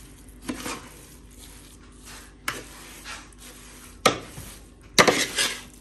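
A metal spoon stirring and scraping a dry, crumbly flaxseed-and-ghee mixture in a large aluminium pot, with a few sharp knocks of the spoon against the pot. The loudest knocks come about four and five seconds in.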